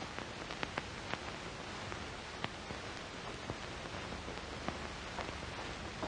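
Steady hiss with faint, scattered crackles and clicks: the surface noise of an old 1930s optical film soundtrack in a silent stretch.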